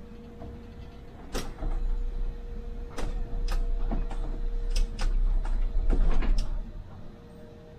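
Interior sound of a MAN Lion's City hybrid city bus: a low rumble with a faint steady hum and about a dozen sharp clicks and rattles. The rumble is quieter at the start and again near the end.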